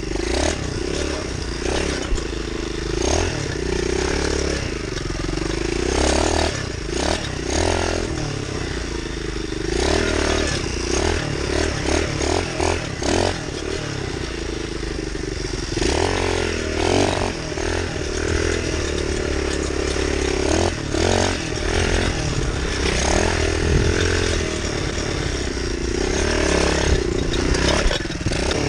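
Pit bike's small single-cylinder engine running and revving up and down as it is ridden over a rough dirt trail, with clattering knocks from the bike over the bumps.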